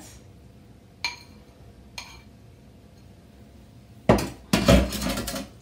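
Two light clinks of kitchenware about a second apart. Near the end comes a loud clatter of metal cutlery against dishes: a fast run of clinks lasting about a second and a half.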